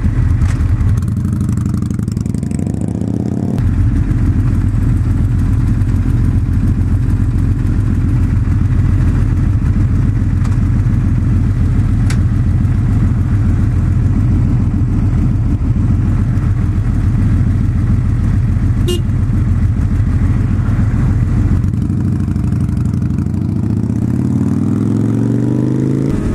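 Sport motorcycle engine pulling away and riding at speed, heard from the rider's own helmet camera with steady wind rush over it. Near the end the engine note drops as the bike slows, then climbs again.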